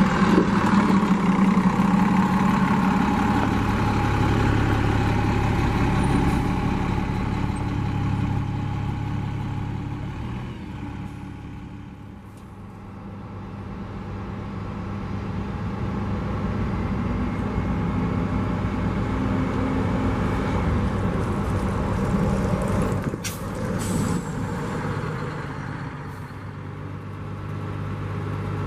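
Diesel transit bus engines running under load: a 2000 Orion V bus pulls away and its engine fades out about twelve seconds in, then another bus engine builds up and runs loud again. A brief air-brake hiss comes about two-thirds of the way through.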